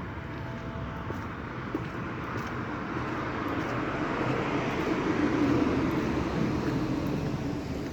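Steady rumbling noise that slowly swells to its loudest about five seconds in, then eases off.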